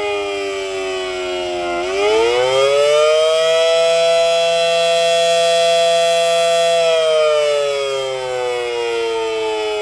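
Federal Signal Model 7AT outdoor warning siren winding down, then winding back up about two seconds in to a steady high tone. It holds for about three seconds and then winds down slowly again in a wavering cycle.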